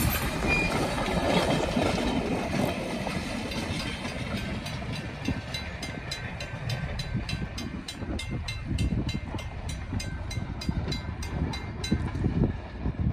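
Strasburg Rail Road No. 89, a steam locomotive, and its train running: a steady low rumble, with a rapid regular clicking, about three a second, from about four seconds in until shortly before the end.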